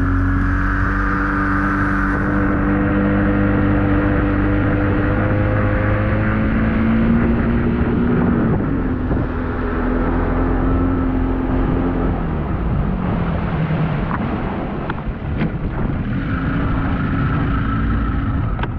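Bass boat's outboard motor running underway, with wind and water rushing past, then throttled back in two steps as the boat slows: its pitch drops about eight seconds in and again about twelve seconds in. A few light knocks come near the end.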